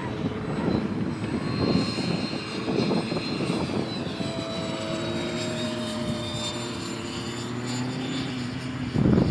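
Electric motor of an RC model F-18 (Blue Angel) flying overhead: a steady whine that slowly falls in pitch as it passes, over irregular low rumbling that is loudest near the end.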